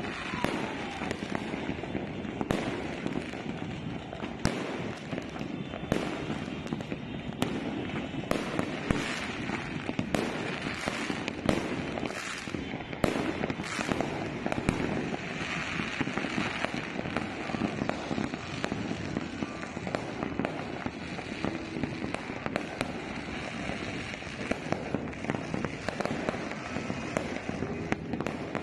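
Many fireworks and firecrackers going off at once across a town: a constant din of crackling and popping with frequent sharp bangs throughout.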